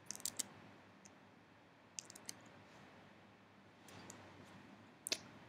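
A few sharp clicks of a computer mouse, in small groups near the start, about two seconds in and near the end, over faint room hiss.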